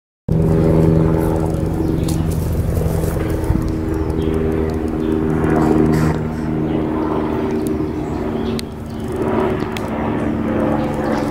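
Steady drone of a small aircraft's engine, a continuous hum made of several even tones.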